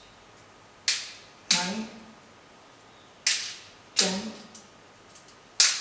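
Glass pebbles dropped one at a time into a small metal bowl: five sharp clinks that ring briefly, coming in pairs a little over half a second apart. A man's voice says a single counted number just after the second clink of the first two pairs.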